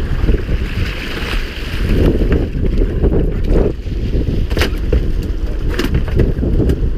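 Rumbling wind buffeting the microphone on a boat at sea, with two short sharp knocks in the second half.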